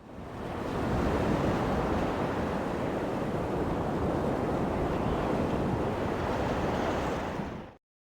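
A steady rushing noise like surf or wind, fading in over the first second and cutting off abruptly near the end.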